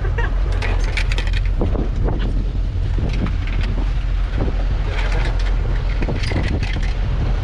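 Steady low rumble of a fishing boat's engine with wind buffeting the microphone, and scattered short clicks and knocks on top.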